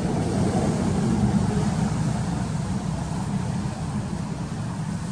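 A steady low rumble, a little louder about a second in.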